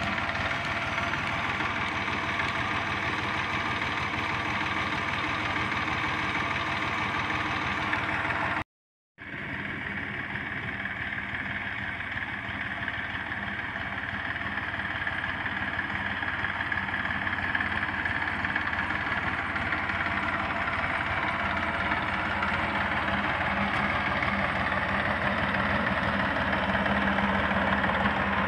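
Massey Ferguson 1035 tractor's three-cylinder diesel engine running steadily as it pulls a land leveler through loose soil. The sound cuts out for about half a second around nine seconds in, and grows louder near the end as the tractor comes close.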